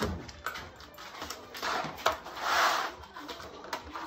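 Handling noise: a few light knocks and two short scraping rubs, the louder one about two and a half seconds in, as a plastic fitting template and tools are moved on a vinyl plank floor.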